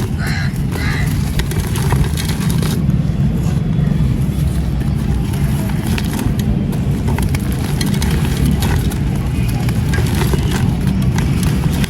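Dry, dusty sand-cement crumbling close to the microphone: a dense, steady low crunching with many small gritty crackles throughout.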